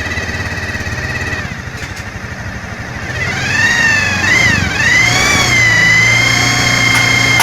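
Automatic scooter engine running with a fitted turbo-sound whistle. A high whistle rises, dips and climbs again with the throttle from about three seconds in, then holds steady over the engine's low running note.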